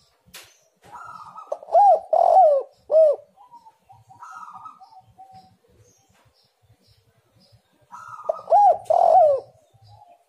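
Spotted dove (tekukur) cooing: two phrases of three low coos each, the first about two seconds in and the second near the end.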